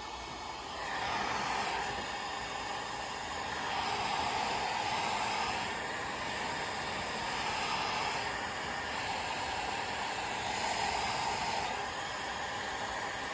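Electric heat gun blowing hot air in a steady rush, swelling and easing slightly, as it warms a vinyl decal to soften it.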